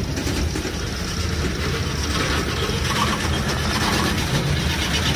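Freight train of gondolas and boxcars rolling past close by: steel wheels running on the rails with a steady low rumble.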